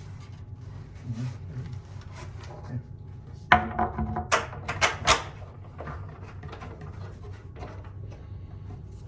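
Wooden hatch parts being handled and set in place: a short creak, then a few sharp wooden knocks about halfway through, over a steady low hum.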